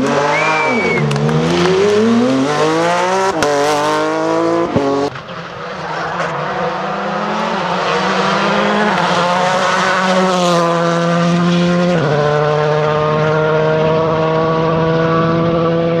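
Rally car engine revving hard and swooping up and down as a Porsche 911 slides through a corner, with a short squeal about half a second in. Then a Škoda Fabia R5 rally car's engine pulls steadily under acceleration, its note climbing slowly with a few gear shifts.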